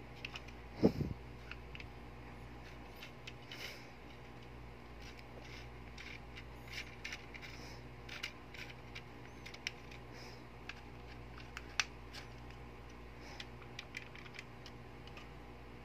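Small scattered clicks and rattles of a spring-type airsoft M1911's internals being handled: the plastic cylinder and spring assembly knocking and sliding against the pistol frame. There is one louder knock about a second in.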